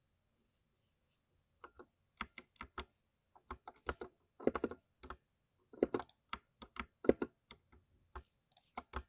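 Typing on a 60% mechanical keyboard: irregular keystrokes and quick runs of clicks, starting about a second and a half in after a pause.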